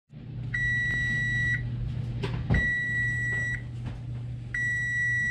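Oven timer beeping three times, long steady beeps about two seconds apart, signalling that the bake is done. A low steady hum runs underneath.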